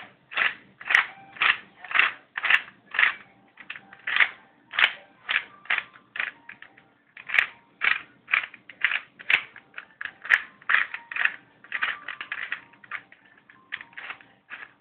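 Plastic layers of a custom cuboid Rubik's-type puzzle clacking as it is turned quickly by hand: a run of sharp clicks about two a second, coming closer together near the end.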